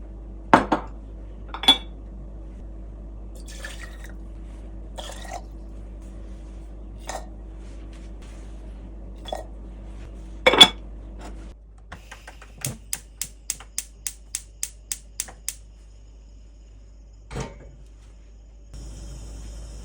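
Dishes and cookware handled while making mulberry tea: scattered knocks and clinks over a steady low hum that stops about halfway through. Then comes a run of about a dozen quick clinks, about four a second.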